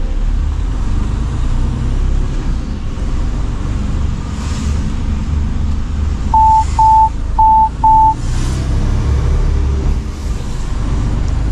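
Mercedes-Benz Actros truck driving, heard from inside the cab: a steady low engine and road rumble. About six seconds in, a high electronic tone beeps four times in quick succession.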